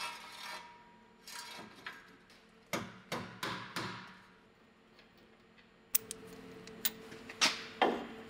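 Tools and parts being handled: scattered clicks, knocks and short scraping strokes. About six seconds in, a sharp click sets off a steady low hum, followed by two louder knocks near the end.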